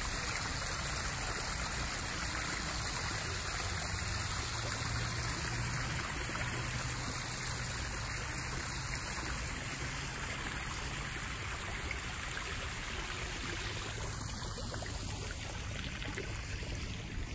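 Backyard koi pond's waterfall running steadily, water splashing and trickling into the pond.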